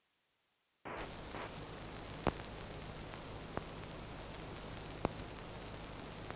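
Old film soundtrack noise: a steady hiss with a low hum that starts about a second in, broken by three sharp clicks.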